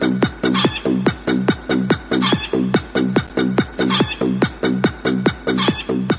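Chicken clucks repeated in a fast, perfectly even rhythm of about four a second, with a brighter call pattern coming back about every second and a half: a looped, beat-like edit of chicken sounds.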